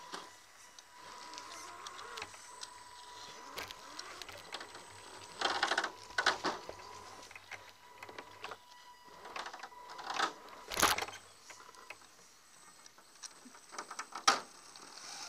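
Electric motor of a radio-controlled scale rock crawler whining steadily at a high pitch as it creeps over rocks. Short bursts of scraping and knocks from its tyres and chassis on rock come about five seconds in, twice around ten seconds, and near the end, the loudest late on.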